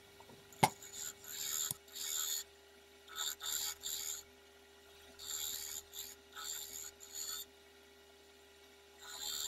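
Bowl gouge taking light shear cuts on a spinning ash bowl on a wood lathe: about eight short, hissing scrapes of the tool on the wood, over a faint steady hum from the lathe. A sharp click about half a second in.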